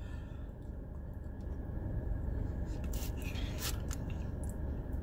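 Steady low rumble of a parked car with its engine and air conditioning running. A few light clicks and rustles come about three to four and a half seconds in.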